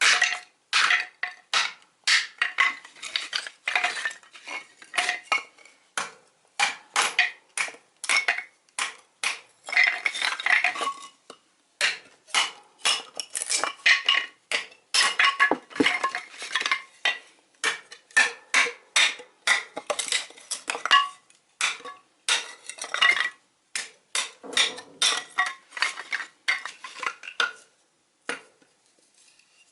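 Tin cans being worked by hand for a can stove, a rapid, irregular run of sharp metallic clicks and clanks with two brief pauses.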